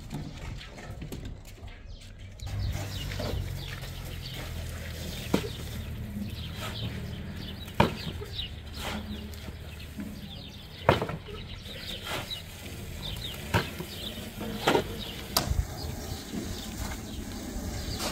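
Steel shovel scooping a sand-and-cement mix off a heap and tipping it into a metal wheelbarrow. A sharp scrape or clank comes every two to three seconds, with gritty scraping between.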